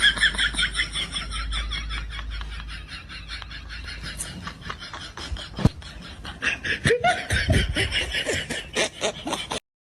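Person laughing in rapid, repeated snickering bursts, with two sharp clicks in the middle. The laughter cuts off suddenly near the end.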